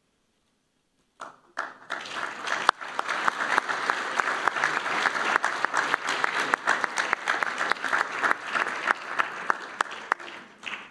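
Audience applauding, a dense clatter of many hands clapping that starts suddenly about a second in and dies away at the end.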